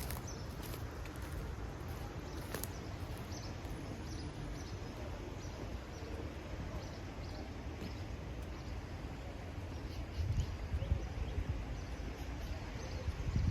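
Outdoor ambience: a steady low rumble with faint, short high chirps scattered through it, and a few louder low surges near the end.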